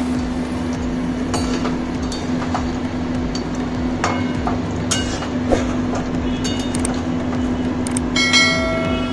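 Flat metal spatula knocking and scraping against a metal kadai as chicken curry is stirred, in scattered clinks over a steady low hum. Near the end comes a short ringing chime, a subscribe-button sound effect.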